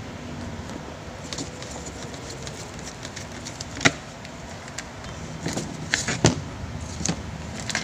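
Clicks and knocks from handling a disassembled electric fan motor with a screwdriver: one sharp click about four seconds in, a cluster near six seconds and a couple more near the end, over a steady low background noise.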